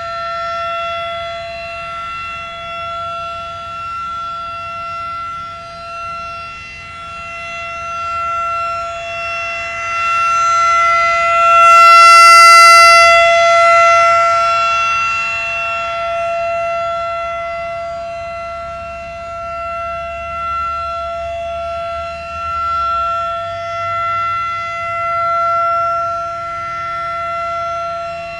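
Federal Signal 2001-SRN rotating electromechanical warning siren sounding a steady single tone at full speed, painfully loud. Its loudness swells and fades as the horn sweeps round, loudest about halfway through.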